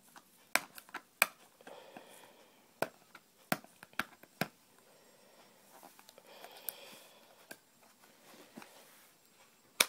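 Hands handling cosmetics packaging: a scattering of sharp, irregular clicks and taps, with faint rustling in between.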